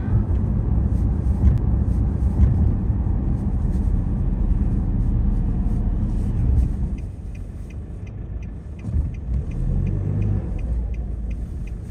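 Nissan car being driven, a steady low rumble of engine and road noise inside the cabin that eases a little about seven seconds in. A light, regular ticking at about two to three a second runs through the second half.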